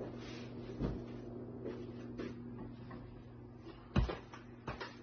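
Steady low hum with a few soft thumps, the loudest about four seconds in.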